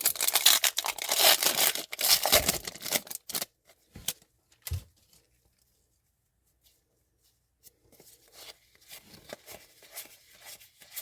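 A hockey card pack's wrapper torn open with loud, ragged tearing and crinkling for about three seconds, followed by a couple of sharp clicks, a pause, then softer rustling as the cards are handled.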